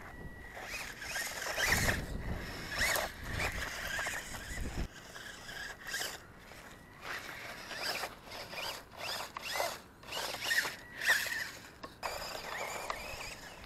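Small electric motor and gears of a 1/24-scale GP Toys S609 4x4 RC car whining in short bursts, rising and falling in pitch as it is driven over dirt and gravel.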